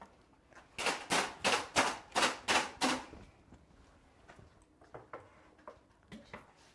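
A quick run of about seven sharp knocks, roughly three a second, followed by a few faint taps: kitchen utensils at work.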